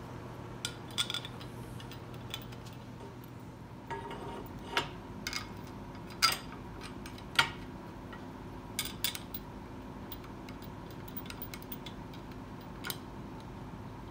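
Steel screws and a steel gusset plate being handled against a steel grinder base: scattered light metallic clinks and taps, roughly one a second with a quick cluster now and then, over a faint steady hum.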